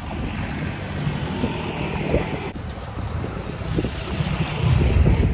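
Road traffic rumbling past on a bridge, with wind on the microphone; a vehicle draws close and the noise swells to its loudest near the end. A thin high whine comes in about halfway through.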